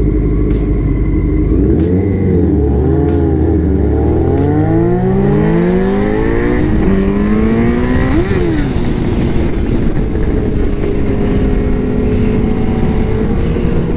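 Yamaha R1 inline-four motorcycle engine under way, its pitch climbing as it accelerates, with a quick rev up and back down about eight seconds in, then running steadily at speed. Other motorcycle engines are heard alongside it in the first half.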